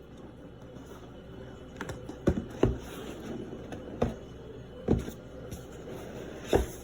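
Products and packaging being handled during an unboxing: about six sharp knocks and taps, spaced unevenly from about two seconds in, as items are picked up and set down.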